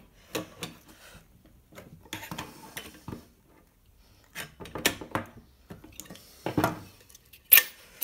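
Irregular metal clinks and knocks as pliers and the metal parts of a microwave magnetron are handled on a tabletop, with a couple of sharper knocks near the end.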